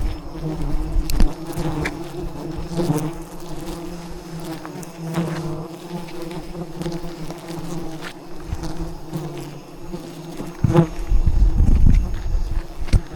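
A swarm of wild bees buzzing in a steady drone, with a few clicks and a low rumble of knocks near the end.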